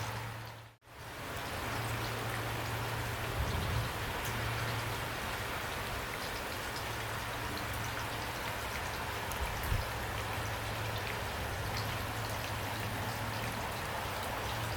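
Heavy rain falling steadily, an even hiss of drops with a low rumble beneath. Under a second in, the sound dips briefly to almost nothing and fades back up.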